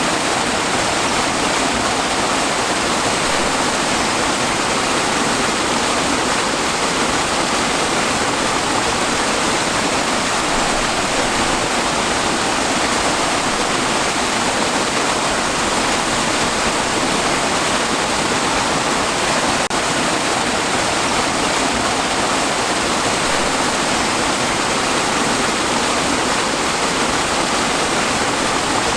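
Waterfall: water pouring and splashing steadily, a constant even rush with no change.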